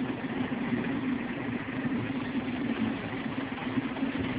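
Round vibrating sieve running: a steady low hum from its vibration motor, with an even hiss over it.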